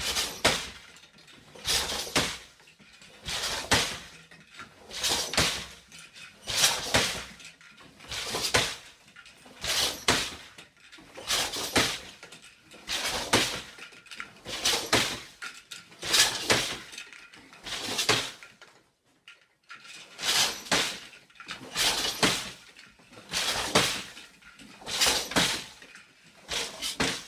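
Weaving at an 8-harness floor loom: the loom clacking in a steady rhythm, pairs of knocks about every one and a half seconds as each weft thread is thrown and beaten into place, with a brief pause about two-thirds of the way through.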